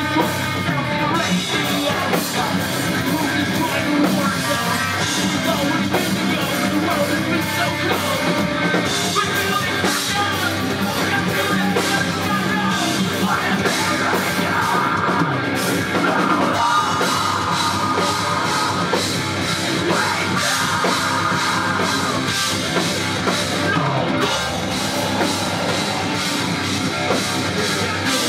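Loud live rock band playing: drum kit, electric guitar and bass.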